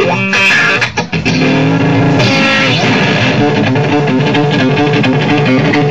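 Live rock band with a loud electric guitar. It is played in hard, choppy hits for about the first second, then held in a long, ringing chord with one note bending.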